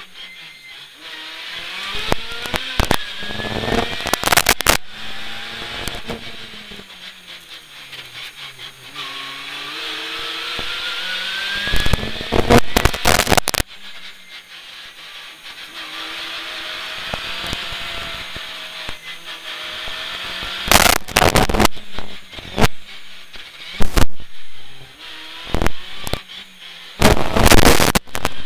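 In-cabin sound of a Citroën C2 R2 rally car's four-cylinder engine driven hard, its pitch climbing under acceleration and dropping on the lift and downshifts, again and again. Several loud bursts of clattering knocks cut through it, each lasting about a second.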